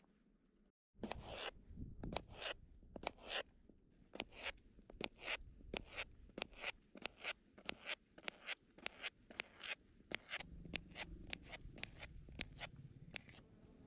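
Knife slicing a fresh cucumber into rounds on a cutting board: a steady run of short, crisp crunching cuts, each ending in a tap of the blade on the board, about two to three a second.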